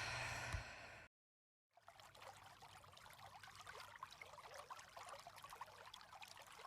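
Faint trickling water, like a small stream, with a patter of tiny drops. It begins about two seconds in, after a brief fading hiss and a moment of dead silence.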